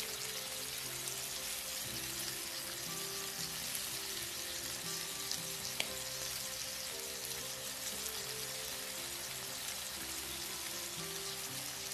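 Shrimp sizzling in hot oil and garlic in a nonstick wok, a steady hiss, with a couple of light clicks from the spatula stirring about halfway through. Soft background music plays underneath.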